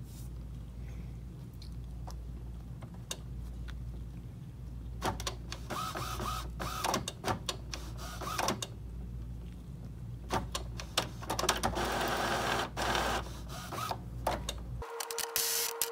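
Epson WorkForce WF-2750 inkjet printer's mechanism running after Start is pressed on the cartridge prompt. From about five seconds in there are whirring motor runs rising and falling in pitch and many sharp clicks as the print carriage and feed gears move, over a steady low hum.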